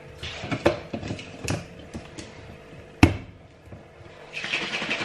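Clicks and knocks of objects being handled at a kitchen counter, with one sharp knock about three seconds in. A steady hiss begins near the end.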